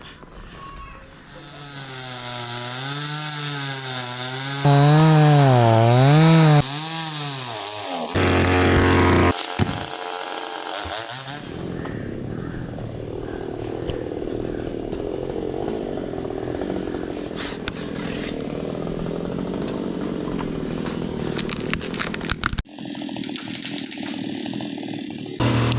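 Chainsaw cutting teak wood. For the first several seconds its engine pitch swings up and down, then it runs at a steadier pitch through the cut. It drops out sharply for a moment near the end and then runs on.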